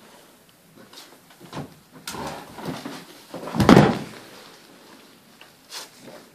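Scuffling, then a heavy thud about three and a half seconds in as a person falls onto a hard floor, followed by a short sharp knock near the end.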